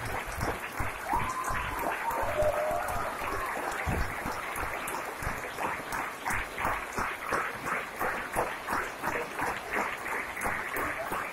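Theatre audience applauding at a curtain call. About halfway through, the scattered clapping turns into rhythmic clapping in unison, a little over two beats a second.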